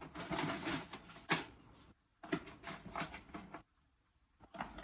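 Wooden pop sticks clicking and rustling against each other in a mop bucket as a hand rummages for the next one to draw: a short rustle, then a run of separate light clicks.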